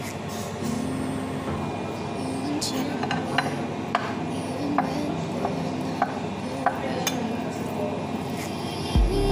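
Metal spoon clinking and scraping against a frying pan as food is scooped out, with sharp clinks about once a second.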